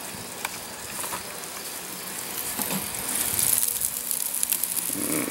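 Bacon-wrapped chicken breasts sizzling and crackling on a charcoal grill grate, getting louder about halfway through.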